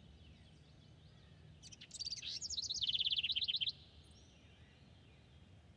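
A small bird singing: faint scattered chirps, and about two seconds in a louder burst of quick high notes that runs into a fast trill and stops abruptly about two seconds later.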